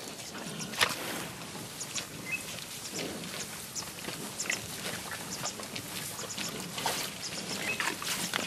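Cape buffalo drinking at a muddy waterhole: water sloshing and dripping, with many short splashes and clicks, and a few brief high chirps.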